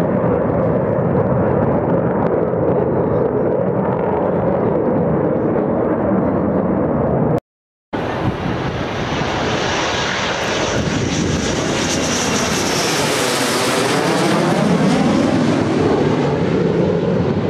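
Panavia Tornado's twin RB199 jet engines in flight: a steady, loud jet rumble, then a short gap about halfway through, after which a second low pass grows louder and hissier and sweeps overhead with a whooshing roar that changes in pitch as it goes by.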